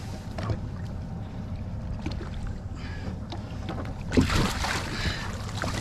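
A steady low rumble of the boat on the water, then about four seconds in a knock and a second or so of splashing as a large dentex is lifted out of the sea by hand.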